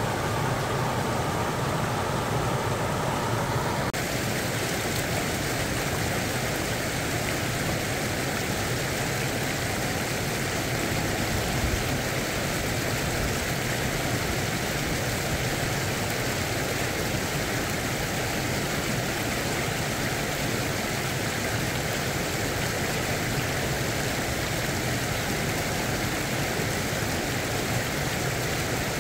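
Water rushing steadily over a low stream weir, a continuous hiss of spilling water that turns brighter about four seconds in.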